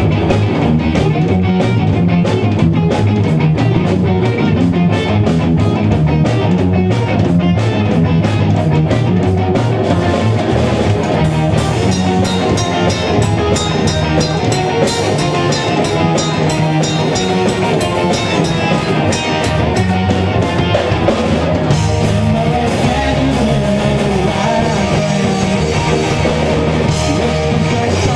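Live rock band: electric guitars, bass guitar and a drum kit. A steady ticking cymbal beat carries the first part, and the sound grows fuller and brighter about eleven seconds in and again a little past twenty seconds.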